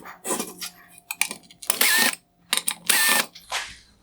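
Small screws being backed out of a plastic headlight LED unit: two short whirring runs of a powered screwdriver, each about half a second, with clicks and light clinks of small parts between them.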